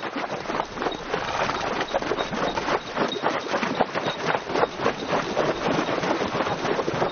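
Two horses galloping through shallow water, their hooves striking and splashing in a quick, irregular patter.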